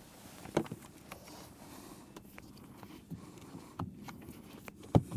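Caravan electrical plug being handled and pushed into the tow car's towbar socket: a few scattered plastic clicks and knocks, the loudest just before the end.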